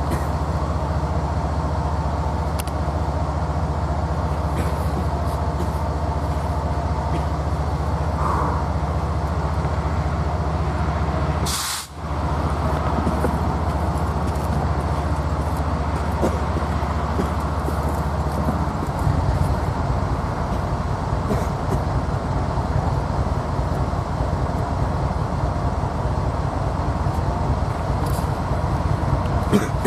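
Diesel freight locomotives running with a steady low engine rumble as a freight train passes, with occasional faint clicks. The sound drops out briefly about 12 seconds in, and the low rumble turns to a faster pulsing about 19 seconds in.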